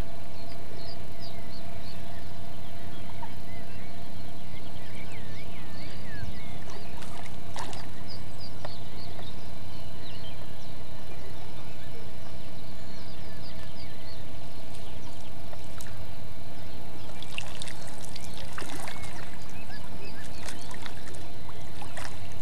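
A hooked fish thrashing and splashing at the surface while being played on a rod, with a run of sharp splashes near the end. Birds chirp throughout over a steady hum.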